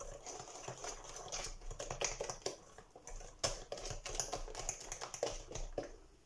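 Chocolate cake batter being stirred by hand in a glass bowl, with a metal utensil clicking and scraping against the glass in a quick, irregular run of light taps. The clicking stops shortly before the end.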